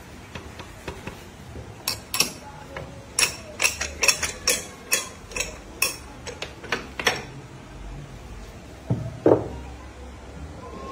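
About a dozen sharp metallic taps over a few seconds as a hand tool strikes the steel cricket-ball mould clamped in a bench vise, followed by one heavier ringing metal clunk near the end.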